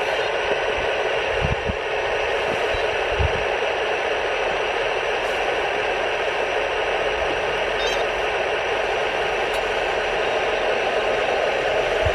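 Steady, static-like hiss of an RC model tank's engine sound unit playing through its small speaker, with two soft low thumps about a second and a half and about three seconds in.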